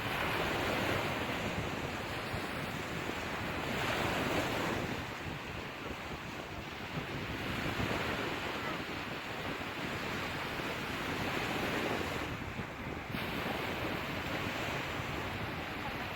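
Sea waves washing onto a shore, a steady rush that swells and ebbs every few seconds as each wave comes in.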